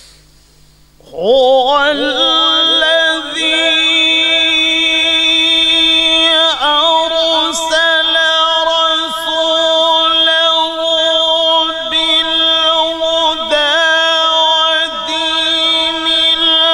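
A man's voice in melodic Quran recitation (tilawat). About a second in it slides up, then holds a long ornamented note with a quick wavering pitch, broken by only a few brief breaks.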